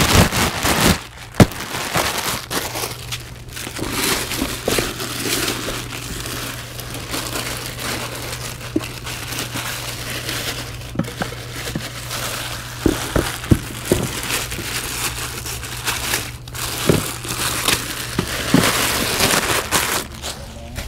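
Clear plastic packaging wrap crinkling and rustling as it is pulled off and bunched up from a power wheelchair seat, with a few sharp knocks as the seat is handled.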